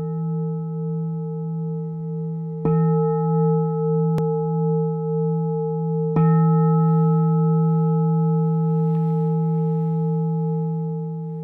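A large meditation bowl bell struck three times: once just before the start, again about three seconds in and again about six seconds in. Each strike is a little louder, and the deep ring wavers in loudness as it sustains, then slowly fades near the end. These are the strikes that open a Zen Dharma talk.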